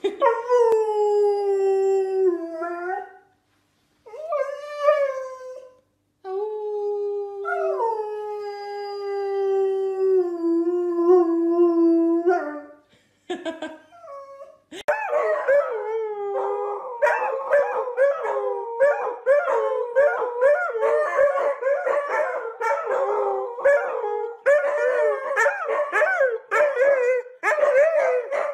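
A dog howls three long howls, each sliding slowly down in pitch, the last one longest with a brief rise partway through. From about halfway in, a husky-type dog gives rapid, wavering howls that rise and fall without a break.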